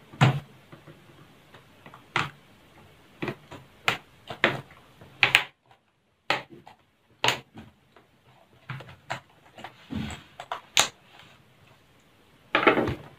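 Irregular sharp plastic clicks and taps from a laptop keyboard being pressed down into the palm rest, its lock tabs snapping into place.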